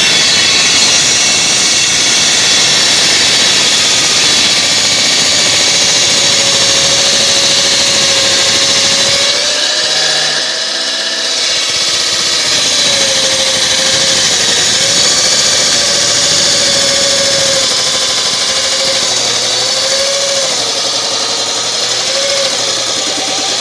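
Chop saw running and cutting through cable, a loud, steady high-pitched whine whose pitch wavers as the blade bites, easing briefly about ten seconds in.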